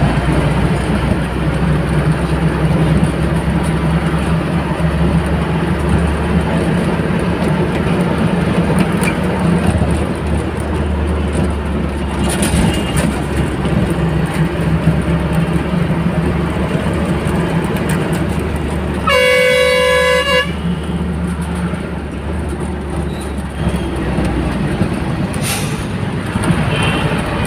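Bus engine droning steadily with road and wind noise, heard from inside the cabin. Near the two-thirds mark a horn sounds once for about a second and a half.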